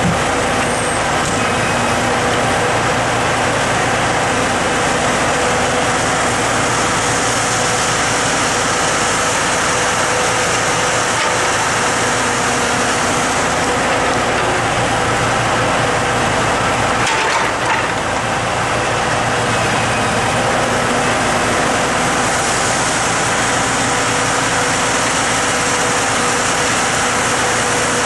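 Log truck's engine running at a steady speed, loud and even, with one short blip a little past the middle.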